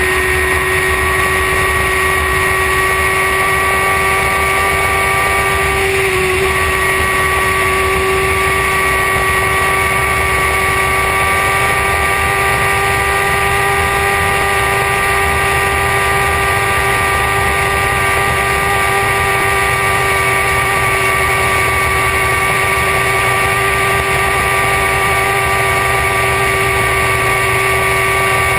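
Superbike engine held at high revs at about 300 km/h, a steady high-pitched whine that climbs only slightly, over heavy wind rush.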